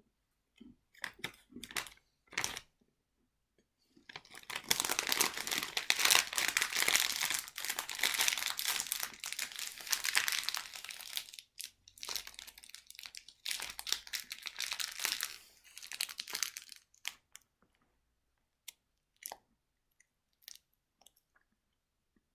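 Clear plastic cookie wrapper crinkling as it is handled, in two long, loud stretches: one from about four seconds in to past the middle, and a shorter one after a brief pause. Scattered small crackles and clicks come before and after.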